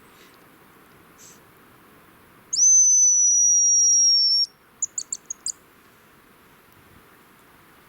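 Hazel grouse whistle call: one long, high, thin note lasting about two seconds that slides slightly down, then five short quick notes.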